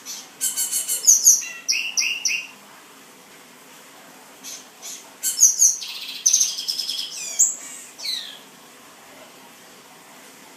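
Male black-and-white seedeater singing: two song phrases a few seconds apart, each a quick run of high chirps and sliding notes, the second ending in a few downward-sliding notes.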